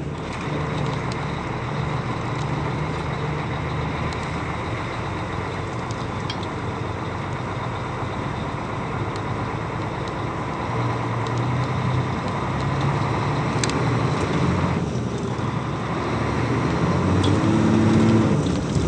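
Semi truck's diesel engine running under load as the truck crawls along, its note shifting with the throttle and climbing in pitch and loudness near the end.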